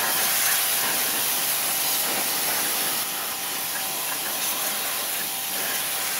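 High-pressure water jet from a StarQ W3 electric pressure washer hissing steadily as it blasts mud off a motorcycle's engine, with a faint steady hum beneath it.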